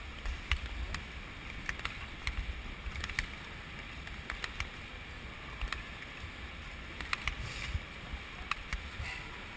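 Speed skates gliding over ice, with sharp clicks of the blades roughly once or twice a second as the skaters stroke, over a low rumble of air rushing past the moving microphone.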